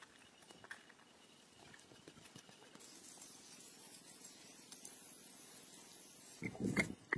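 Soft, irregular scraping and scratching of a hand tool working damp packed earth, louder near the end. A steady high hiss comes in about three seconds in and stops shortly before the end.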